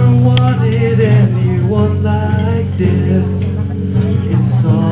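A man singing into a microphone, accompanied by a strummed acoustic guitar.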